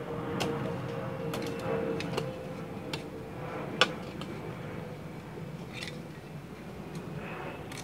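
A shovel digging into soil: irregular sharp chinks and scrapes of the blade, the loudest about four seconds in.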